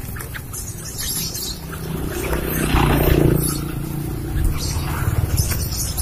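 Rustling and scuffling as a hand reaches into a wire cage of yellow-vented bulbuls to catch one, with the birds fluttering against the cage. The rustling swells loudest about three seconds in.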